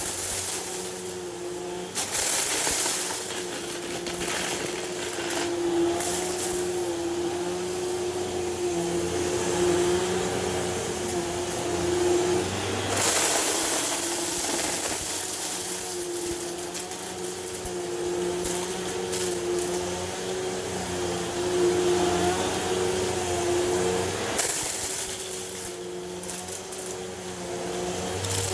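Hoover Elite Rewind Plus upright vacuum cleaner running, a steady motor hum whose pitch wavers slightly, with louder rushes of hissing air several times.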